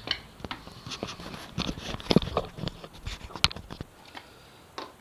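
Irregular clicks, taps and light knocks of handling and moving about, loudest a little after two seconds in and again about three and a half seconds in.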